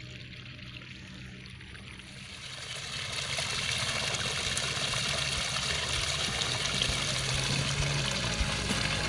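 Water trickling steadily in a flooded rice paddy, growing louder about three seconds in as the microphone nears the water.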